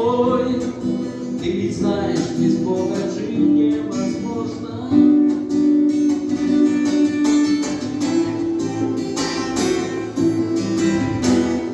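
Song music led by a strummed acoustic guitar, with a little singing, forming the instrumental close of a worship song.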